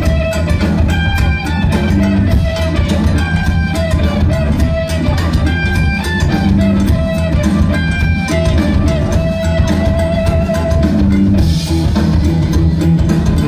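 Rock band playing live and loud: electric guitars, bass guitar and drum kit, heard from the audience in a concert hall.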